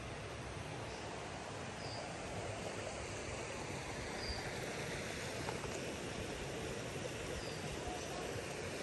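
Water rushing steadily along a narrow stone-lined channel and shallow rocky stream.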